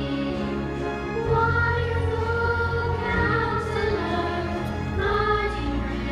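A children's group singing into microphones, backed by a church choir and a small orchestra of strings and winds. The notes are held, with the bass moving to a new chord about a second in and again near the five-second mark.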